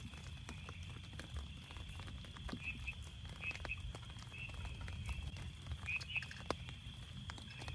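Night forest ambience: a steady high-pitched insect drone, with short chirping calls about four times, over scattered light taps and a low rumble.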